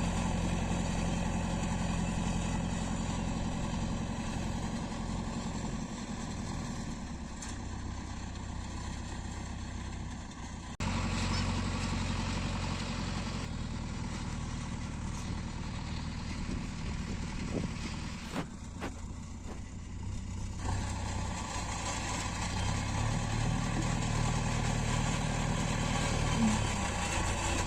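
JCB 3DX backhoe loader's diesel engine running under work, its low note rising and falling in strength as the load changes.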